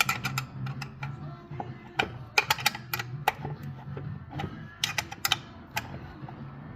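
Sharp metallic clicks and clinks from hand tools working on the engine, coming in quick clusters near the start, about two and a half seconds in, and about five seconds in, over a low steady hum.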